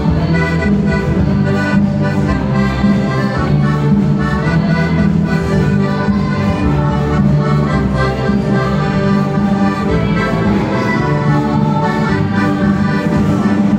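Large folk ensemble led by many accordions playing a tune together, with a steady beat.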